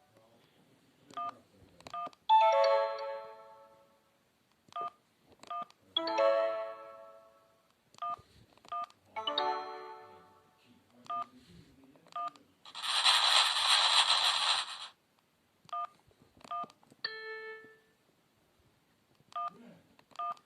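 Sony Ericsson D750i mobile phone playing its built-in sound effects one after another. Short beeps in pairs recur between several brief melodic chimes and jingles, and about two-thirds of the way through there is a two-second hissing burst.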